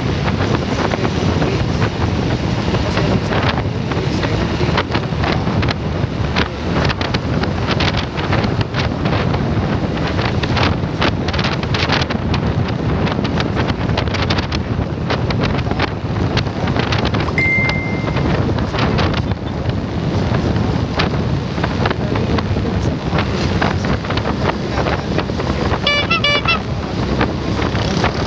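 Wind buffeting a phone microphone on a moving motorcycle, over the running motorcycle engine and traffic. Two short toots cut through, one past the middle and one near the end.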